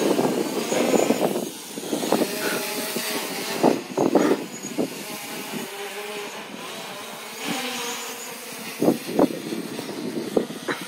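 Small quadcopter drone's propellers buzzing in flight, the motor hum drifting slightly in pitch, with several brief louder knocks.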